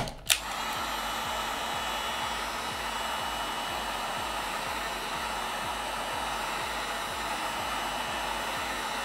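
Heat gun blowing hot air steadily after a click near the start, with a faint high whine over the rush of air. It is heating the phone's screen edge to soften the adhesive.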